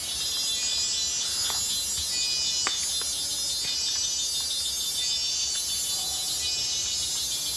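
Steady, high-pitched chorus of rainforest insects trilling and buzzing together.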